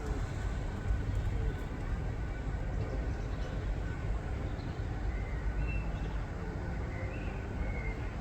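Railway station ambience: a steady low rumble, with a few faint short chirps over it.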